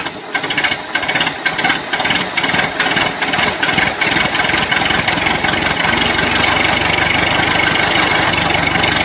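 Small engine running, uneven and clattering for the first few seconds, then settling into a steady idle.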